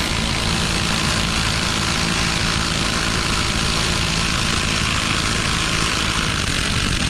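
AOBEN 1/2-inch brushless cordless impact wrench hammering steadily as it works a hard-tightened nut loose, running for about seven seconds. It cuts off suddenly near the end: the brake-stop feature halts the spin once the fastener breaks free.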